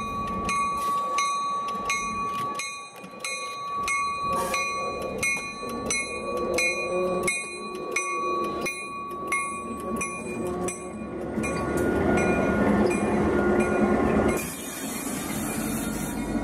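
Diesel switcher locomotive passing with its bell ringing steadily, about two strokes a second. The bell stops about eleven seconds in, and the locomotive's engine and running gear grow louder as it rolls by. A hiss follows briefly near the end.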